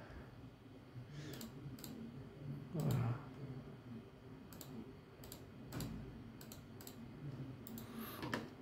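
Faint computer mouse clicks, about a dozen at irregular intervals, as a mouse is clicked through on-screen menus.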